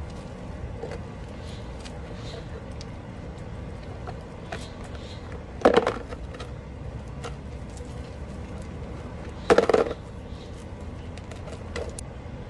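Pebbles and gravel clattering as they are picked up by hand, with two louder rattling clusters of stone knocks a few seconds apart and scattered small clicks between, over a steady low background rumble.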